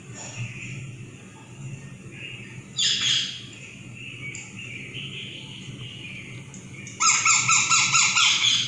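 Young rose-ringed parakeet calling: a short loud call about three seconds in, softer chirping after it, then a loud, fast run of repeated chirps near the end.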